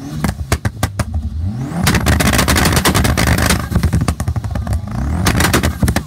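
Mitsubishi Evo IX FQ-340's turbocharged four-cylinder held on launch control with anti-lag, the engine revving while the exhaust pops and bangs rapidly and irregularly. The bangs come thickest, over a rushing exhaust noise, from about two to three and a half seconds in.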